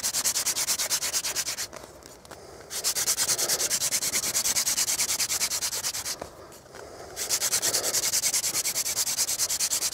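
Hand-drill fire-making: a wooden spindle spun back and forth between the palms, grinding into a hearth board with a fast, even rubbing rhythm. It breaks off twice for about a second, about two and six seconds in, then picks up again. This is the friction that builds hot dust toward an ember.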